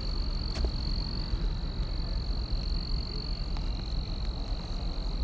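Night chorus of calling animals, a steady high-pitched trill, over a low rumble of noise on the microphone.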